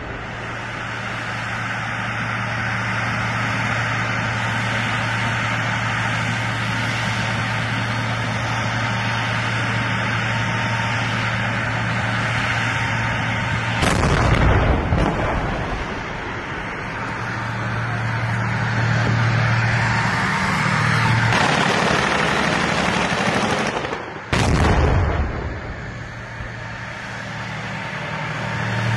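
Tank engine running with a steady low drone, broken by two loud blasts, one about halfway through and one near the end.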